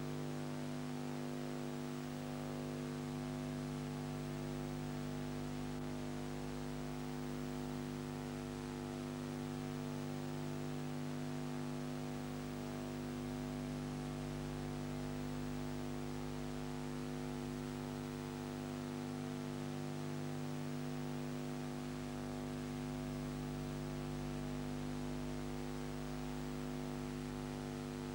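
Steady electrical hum of several held tones over a faint hiss, with no change in level or pitch.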